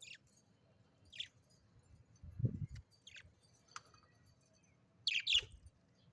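A small bird giving short, sharp chirps that drop in pitch: four single ones, then a louder pair near the end. About halfway through comes a dull, low thump.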